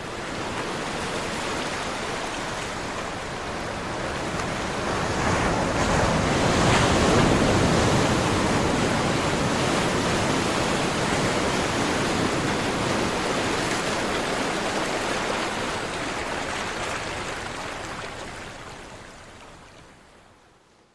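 Caribbean Sea surf, a steady wash of waves that builds to its loudest about seven seconds in and then fades away toward the end.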